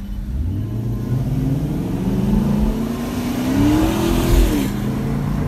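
V8 muscle-car engine accelerating hard from a stop, heard from inside the cabin. Its pitch climbs steadily for about four seconds and then drops sharply near the end.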